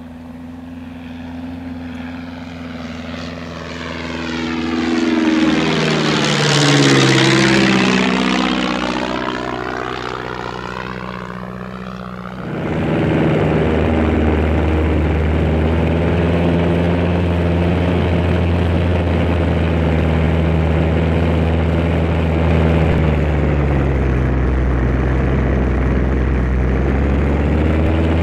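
Gipsy Major engine sound of a model Tiger Moth biplane. It flies past, swelling and then dropping in pitch as it goes by. About twelve seconds in it jumps to a louder, steady drone heard close up from on board, which sags briefly in pitch near the end.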